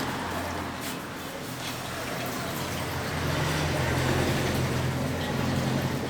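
A steady low engine hum, like a motor vehicle nearby, growing louder for a few seconds in the second half, with a few faint clicks over it.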